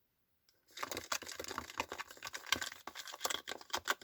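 A stick stirring a runny toothpaste-and-salt mixture in a small container: a dense run of scraping, crackling clicks that starts about a second in.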